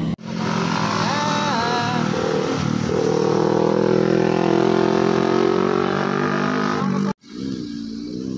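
Sport motorcycle passing close at speed: its engine note rises and falls about a second in, then holds high and loud. After an abrupt cut near the end, a quieter motorcycle engine with a wavering note.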